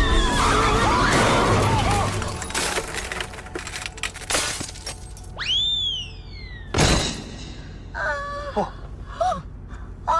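A car windshield being smashed in a dramatic soundtrack: sharp impacts and glass shattering, over background music.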